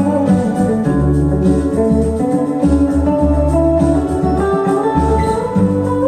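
Music with organ, guitar and deep bass notes, played back through a pair of B&W CM9 floorstanding loudspeakers in a listening test.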